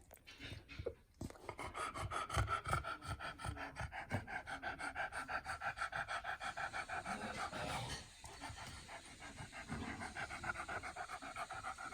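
A beagle panting rapidly and evenly, with a brief pause about two-thirds of the way through before the panting resumes.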